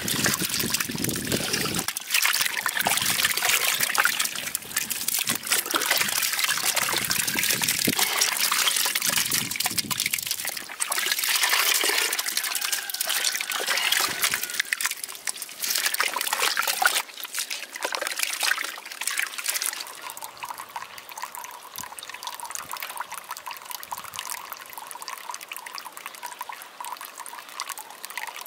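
Water trickling and splashing, a dense patter that drops noticeably quieter about two-thirds of the way through.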